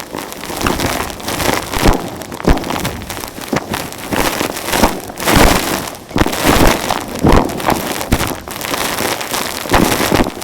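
Vacuum cleaner sucking up gritty dirt, a dense crunching crackle of debris rattling into the tool with irregular surges.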